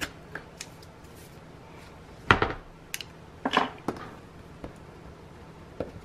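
Hands working a strip of tape onto white cardstock on a wooden tabletop: a few light clicks and ticks, a sharper knock about two seconds in, and a short rustle of tape and paper about a second after.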